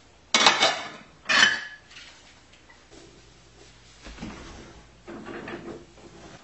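Dishes clattering twice in quick succession as they are handled and put away, then a few light knocks. Near the end comes a softer rubbing, a cloth scrubbing the floor.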